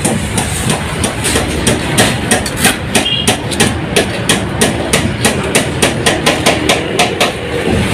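Rapid, irregular hammer strikes, several a second, over a steady engine drone on a building site.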